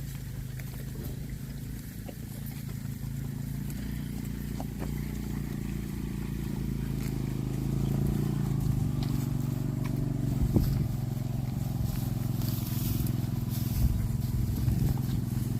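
An engine running steadily, growing louder about halfway through, with a couple of sharp knocks.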